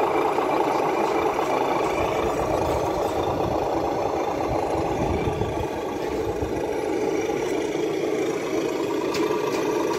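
An RC scale crawler's engine sound module growling steadily, like an idling engine.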